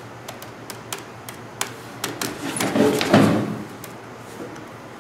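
Plastic keys of a graphing calculator being tapped, a quick uneven run of small clicks, with a brief voice-like sound about three seconds in.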